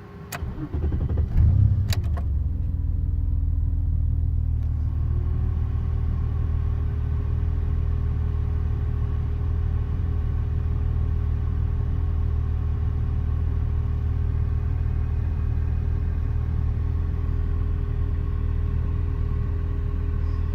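BMW E32 7 Series M30 straight-six being restarted after stalling: two sharp clicks and a short crank, catching within about two seconds, then idling steadily. A faint whine rises about five seconds in and holds.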